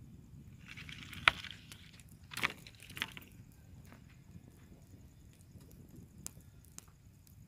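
Campfire sticks being handled: a short hiss with three sharp knocks or snaps, the loudest about a second in, then a few faint crackles.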